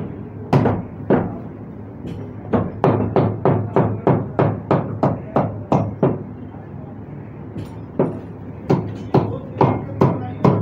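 A butcher's cleaver chopping lamb on a wooden log chopping block: quick runs of sharp chops, about three a second, broken by short pauses.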